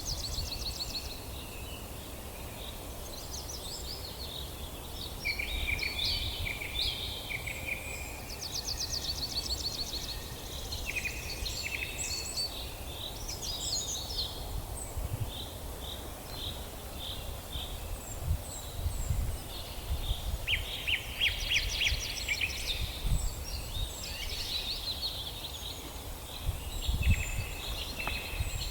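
Small birds chirping and trilling, with many short high calls and quick rattling trills coming and going, over a steady low rumble.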